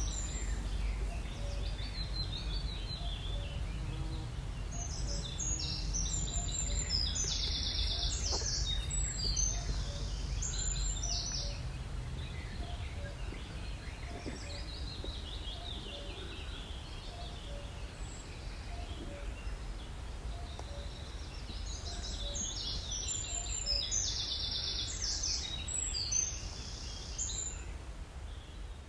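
Outdoor ambience: a steady low rumble with bursts of quick, high bird chirps, once around five seconds in and again past twenty seconds. It fades down near the end.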